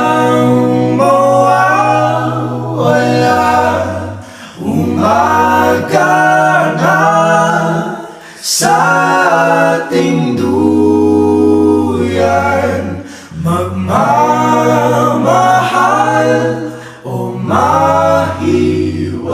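A Tagalog song: voices singing in phrases with short pauses, over steady low held notes.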